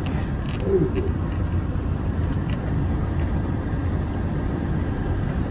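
Steady low rumble of a moving road vehicle: engine and tyre noise while driving.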